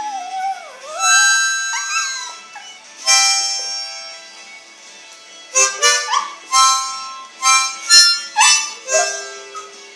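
Harmonica played in short bursts of chords while a dog howls along, its voice sliding up and down in pitch.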